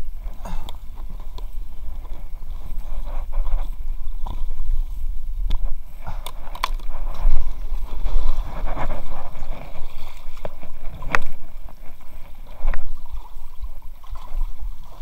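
Kayak paddle dipping and splashing in shallow brook water beside an inflatable kayak, with a few sharp knocks and clicks from the paddle and boat.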